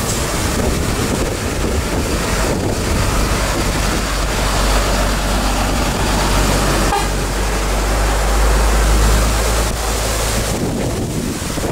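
Diesel engines of a truck convoy: a DAF CF box truck passing close, then a Volvo FH tractor unit approaching, its deep rumble growing from about four seconds in and loudest near nine seconds.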